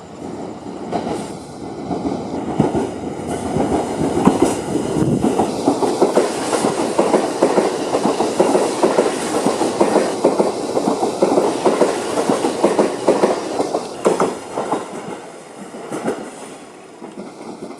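Shinano Railway electric train passing close by: a loud rumble of wheels with rapid clattering over the rail joints, building about a second in and easing off after about fourteen seconds.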